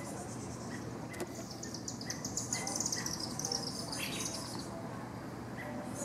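A small songbird singing a long, high, rapid trill that slowly slides downward in pitch, over a short lower note repeated about twice a second.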